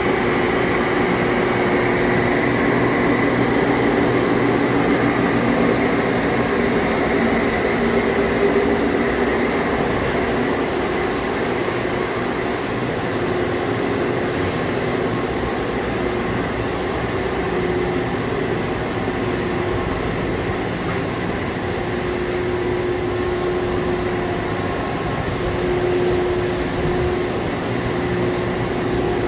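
Steady running of machinery, a continuous mechanical noise with a humming tone that fades in and out.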